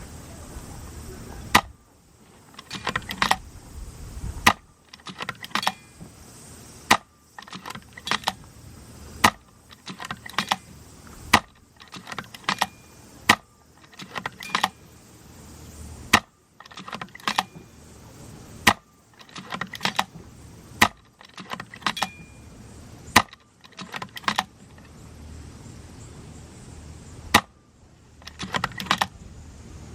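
VSR-ONE spring-piston airsoft bolt-action rifle firing 0.40 g BBs, about a dozen sharp shots two to three seconds apart, each followed by a rattle of clicks as the bolt is worked to cock it for the next shot.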